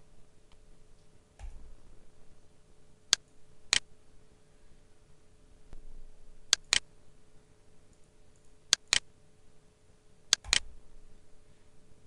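Computer mouse clicking: four pairs of quick, sharp clicks a few seconds apart, over a faint steady hum.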